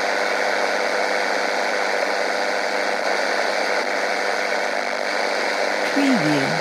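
Radio interference static: a steady hiss of noise with a faint hum under it. About six seconds in, a click and a short falling glitch tone break through.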